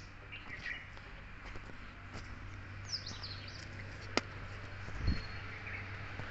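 Small birds chirping in short bursts of quick falling notes, over a steady low background hum. A sharp click about four seconds in and a low thump about a second later.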